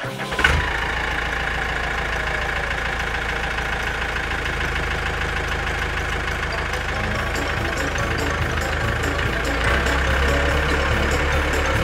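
Tractor engine running steadily with a fast, even chugging, growing a little louder about ten seconds in.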